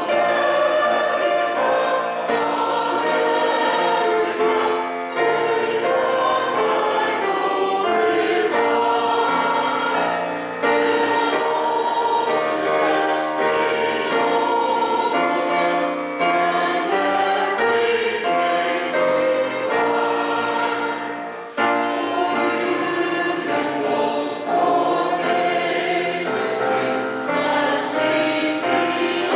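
A choir singing a hymn in long held phrases, with short breaks between phrases.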